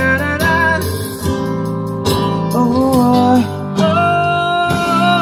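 Live acoustic band music: a male singer's amplified voice holds long, wavering notes over strummed acoustic guitar and bass guitar. A long held note starts about four seconds in.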